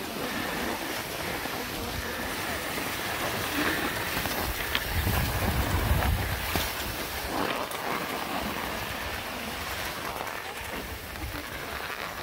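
Steady hiss of skis sliding over groomed snow, with wind rumbling on the microphone now and then.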